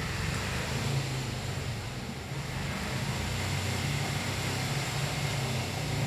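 Steady low engine hum of a motor vehicle running nearby.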